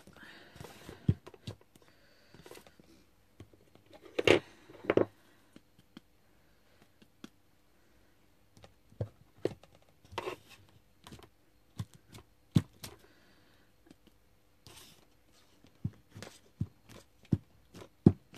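Scattered light taps and knocks of a small stamp and ink pad being handled and pressed onto paper on a tabletop, with two louder thumps about four and five seconds in.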